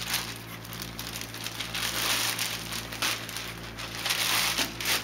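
Clear plastic bag crinkling and rustling as it is pulled off a foam-packed algae scrubber, loudest about two seconds in and again near the end, over a steady low hum.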